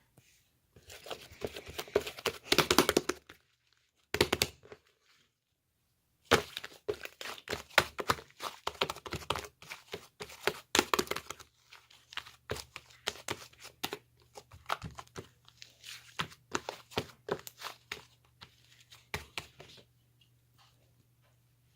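Close hand-handling noises of slime-making materials: irregular crinkling, crackling and clicking with soft thunks, in spurts separated by short pauses.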